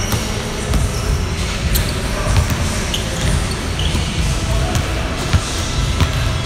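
Basketballs bouncing on a hardwood court, with a few sharp thuds standing out, the clearest two about half a second apart near the end.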